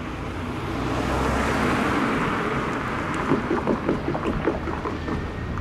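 Amtrak passenger train, led by a Siemens SC-44 Charger diesel-electric locomotive, passing at speed through a road crossing. A rushing rumble swells over the first two seconds, then rapid clacks and clunks follow from the wheels striking the crossing and rail joints.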